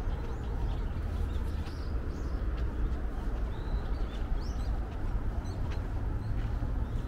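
Small birds giving short, high chirps here and there over a steady low rumble.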